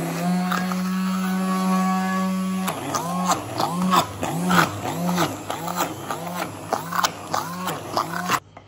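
Electric stick blender running in thick cake batter: a steady motor hum at first, then about three seconds in its pitch starts to sag and recover about twice a second, until it stops suddenly near the end.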